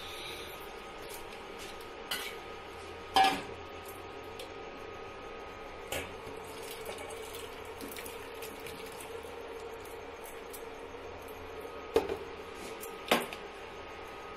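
A non-stick kadai and a steel bowl clank against each other a handful of times as thick curry is tipped from the pan into the bowl, with the sharpest knocks about three seconds in and near the end.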